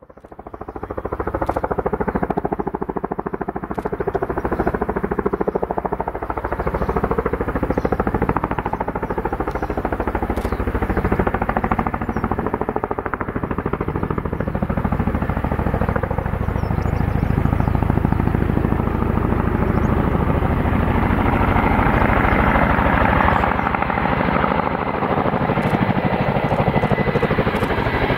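Boeing CH-47 Chinook tandem-rotor helicopter approaching in flight, its rotors giving a fast, steady beating pulse. The sound fades in at the very start and grows louder through the second half as the helicopter draws nearer.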